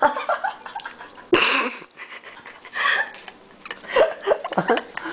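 A few short, breathy voice sounds, like stifled laughter, between quieter stretches.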